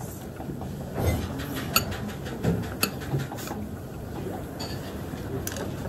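A metal spoon and wooden chopsticks clicking and scraping against a ceramic rice bowl, with a few sharp clinks spread through, over steady low background noise.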